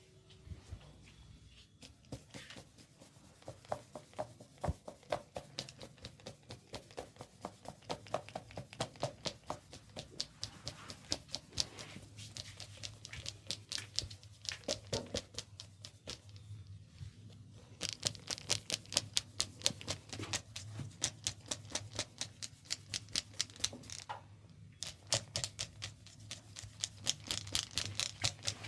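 Rapid, rhythmic patting and slapping of hands on an oiled head during a head massage, several strokes a second. The strokes get sharper and brighter in two long runs over the second half.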